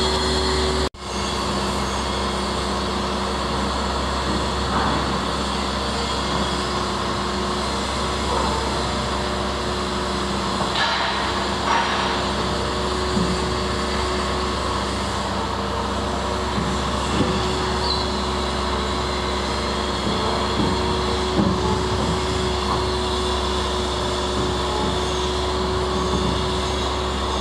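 Heavy diesel machinery running steadily, a continuous engine hum with a low drone, as the heavy-lift gear moves a 75-tonne workboat for launching. The sound cuts out briefly about a second in.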